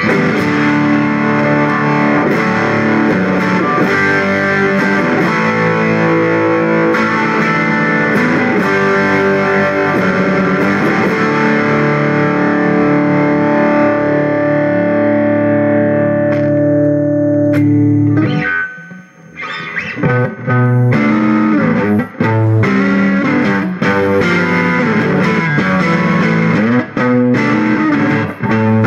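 Electric guitar with a heavily distorted, fuzz-like tone: a chord rings out and is held for about eighteen seconds, slowly losing its top end, then stops abruptly. After a short break, choppy chords and riffs with brief stops.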